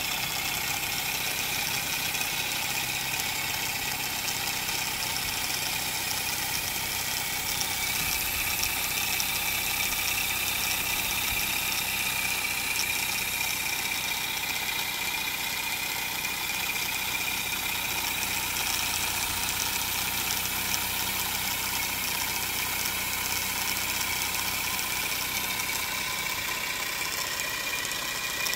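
Balloon-powered paper boxer-twin air engine running steadily at about 1000 RPM: a fast, even ticking rattle of the paper pistons and valve, over a constant airy hiss.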